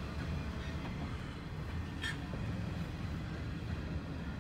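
BNSF double-stack intermodal freight train rolling past, a steady low rumble of wheels on rail, with a short sharp click about two seconds in.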